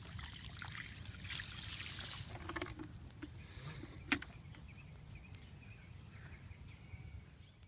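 Water poured from a plastic bucket splashing onto dry ground at the foot of a tree, a hissing splash that dies away after about two and a half seconds. One sharp click about four seconds in, over a low rumble.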